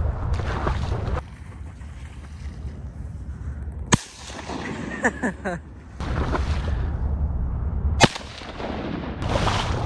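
Shotgun fired twice, about four seconds apart, each a single sharp blast. Wind rumbles on the microphone in between.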